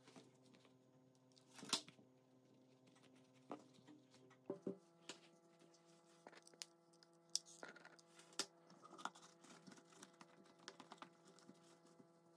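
Quiet handling of a fabric-covered cardboard disc and a fabric-lined basket: scattered light taps, clicks and rustles, the sharpest tap a little under two seconds in, over a faint steady hum.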